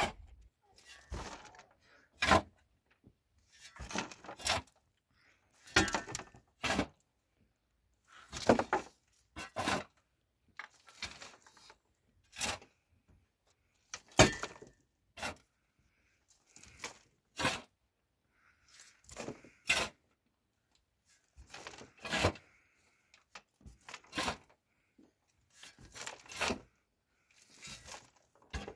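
A series of short, sharp cracks and thunks, roughly one every second or two, with quiet gaps between them, like something being broken, struck or torn by hand over and over.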